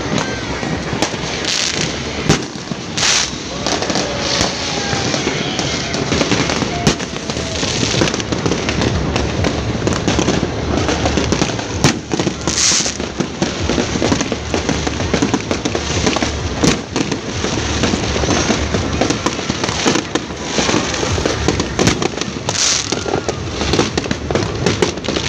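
Many fireworks going off without pause: a dense, continuous crackle of bangs, with a few sharper, louder reports standing out.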